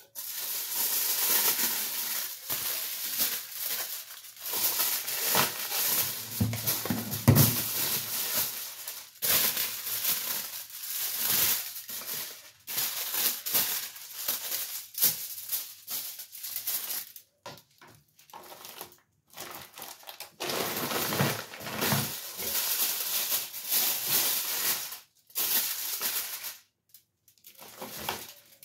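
Irregular crinkling and rustling of hair foil and disposable gloves being handled, in fits and starts with short pauses, and a heavier bump about seven seconds in.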